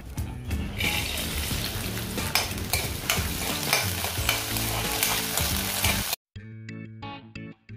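Peanuts sizzling in hot oil in a kadhai while a metal spoon stirs them, clicking and scraping against the pan. The sizzling starts about a second in and cuts off suddenly about six seconds in, leaving background music.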